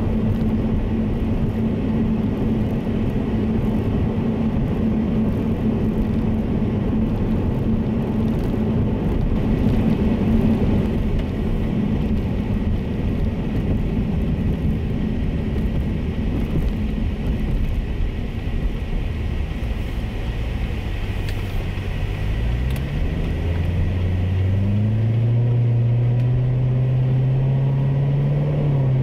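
Supercharged 6.2-litre V8 of a 2019 Chevrolet Corvette Z06 and its road noise, heard from inside the cabin while driving. About three quarters of the way through, the engine note climbs and then holds at a higher pitch.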